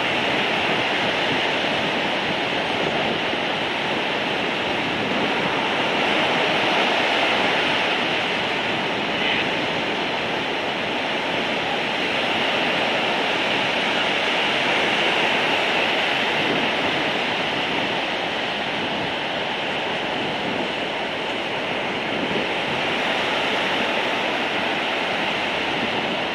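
Heavy breaking surf on a stormy sea: a steady, unbroken wash of foaming waves.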